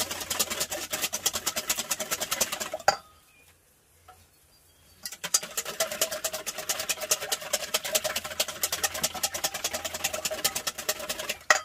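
Wire whisk beating a liquid mix of eggs, cream and sugar in a stainless steel bowl: fast, even ticking of the wires against the metal. It stops for about two seconds a few seconds in, then starts again.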